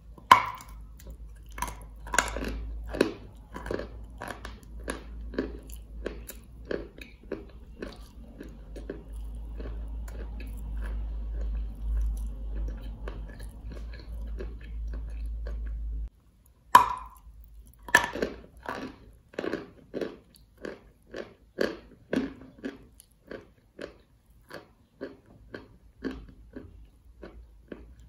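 Crunchy white chalk coated in brown clay being bitten and chewed close up. A sharp bite crack comes near the start and another a little past halfway, each followed by a run of crunchy chews at about two a second.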